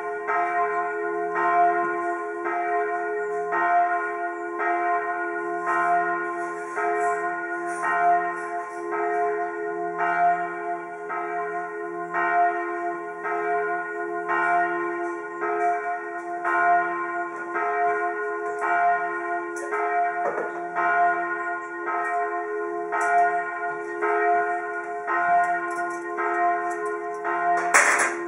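Church bells of the French Church in Bern ringing a full peal, several bells sounding together in a steady, even rhythm of strokes. A brief sharp click near the end.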